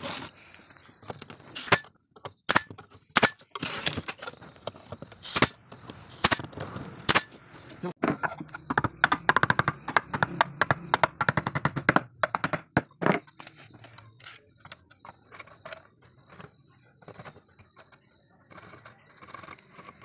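Hammer tapping pine pieces into place: single sharp knocks a second or so apart, then a fast run of light taps lasting about four seconds, then fainter scattered clicks.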